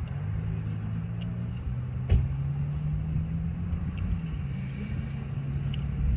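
A steady low motor hum, like an engine running nearby, with a few soft clicks and a sharper knock about two seconds in as fries are picked up and eaten.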